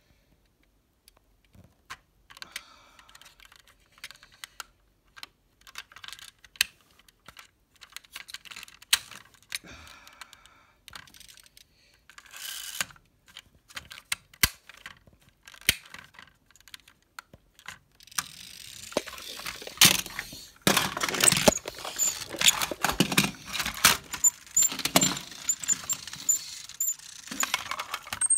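Irregular sharp clicking and clattering of small hard objects, sparse at first, then denser and louder over a rushing hiss for the last third.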